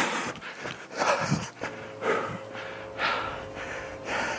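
A man breathing hard and loudly, out of breath from running, about one heavy breath a second.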